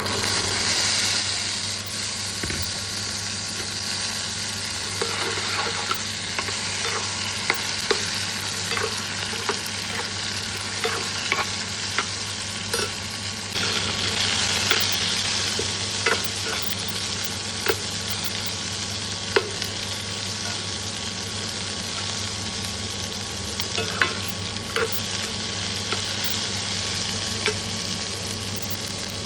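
Chana (chickpeas) sizzling as they fry in a pan, with a steady hiss, while a spatula stirs them and clicks and scrapes against the pan again and again.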